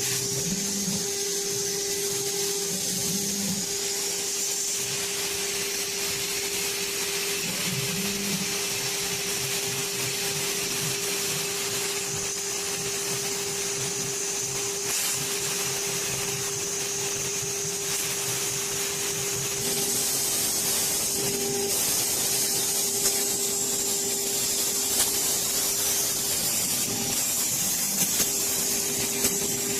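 Spindle of a PCB CNC milling router running with a steady whine over a hiss, the level even throughout, with a few small ticks near the end.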